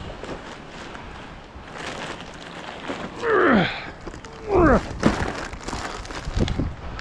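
Footsteps and the crinkle of black plastic trash bags, then two short grunts of effort, each falling in pitch, about three and a half and four and a half seconds in as heavy bags are heaved up into a roll-off dumpster, followed by a knock against the container.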